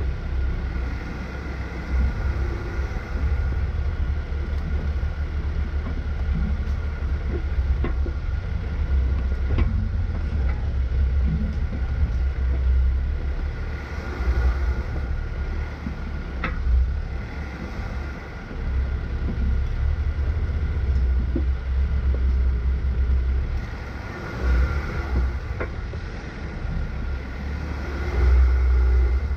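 A 4x4 off-road vehicle's engine running at low speed as it crawls along a rocky dirt trail. A steady deep drone is broken by a few sharp knocks.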